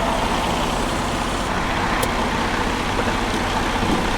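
Steady roar of heavy interstate traffic, trucks and cars passing close by, with a faint tick about two seconds in.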